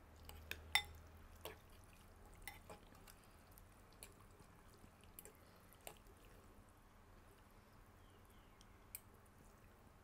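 Metal fork and spoon stirring noodles in broth in a ceramic bowl: scattered light clinks of metal on the bowl with small wet, dripping sounds. The clinks are loudest and most frequent in the first few seconds, then sparser, with one more near the end.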